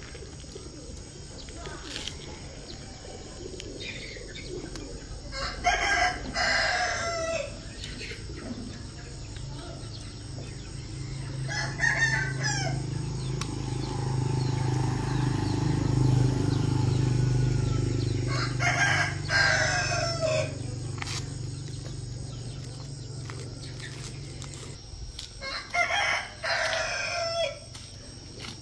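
A rooster crowing four times, each crow one to two seconds long and several seconds apart. A low steady drone swells and fades in the middle, between the second and third crows.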